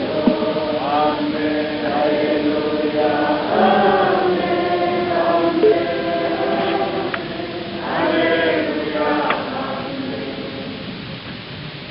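A congregation singing a hymn together, many voices holding long notes; the singing grows quieter near the end.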